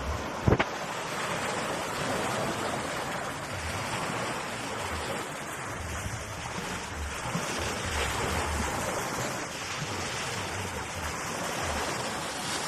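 Steady rush of surf and wind, with gusts of wind buffeting the microphone. A single sharp knock about half a second in.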